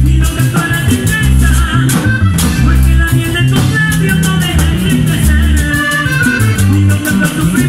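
Live vallenato band music: a button accordion plays a melody over a steady bass line. A metal guacharaca scrapes a fast, even rhythm, with congas and drum kit.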